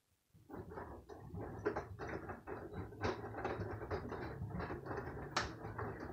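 LG washing machine's drum starting to turn: a low motor hum with irregular clicking and pattering from the wet load tumbling, as the machine works toward its interim spin.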